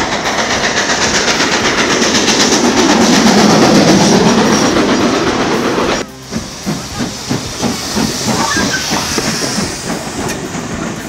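GWR King class steam locomotive No. 6023 King Edward II running past at speed: a loud rush of steam hiss with fast exhaust beats that swells to a peak about four seconds in. After a sudden change about six seconds in, the tender and coaches roll close by with a steady clicking of wheels over rail joints, about three clicks a second.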